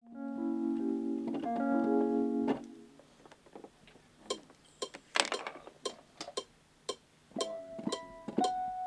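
Sustained keyboard chords for about two and a half seconds, then a few seconds of scattered sharp clicks and taps, then plucked string notes starting near the end.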